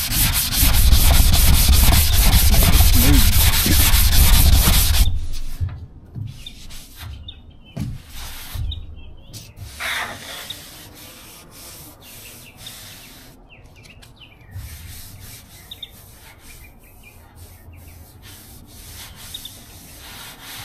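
Sandpaper sanding down a car's body panel during bodywork. Loud, continuous sanding for about the first five seconds, then lighter, intermittent strokes.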